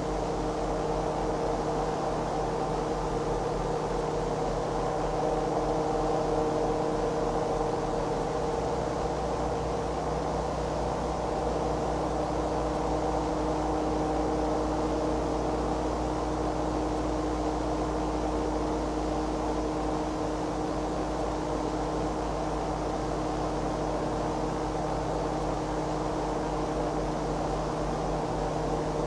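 Diesel locomotive engines running steadily: a drone with several held tones over a background hiss, and a deeper hum joining about a third of the way in.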